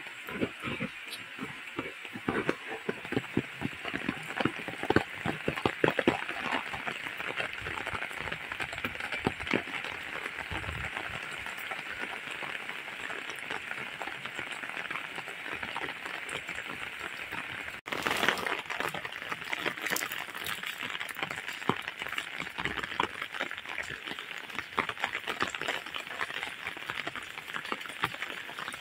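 Steady rain falling, a continuous hiss with many close drops and splashes that are loudest in the first few seconds. The sound cuts out for an instant about two-thirds of the way through, then the rain carries on.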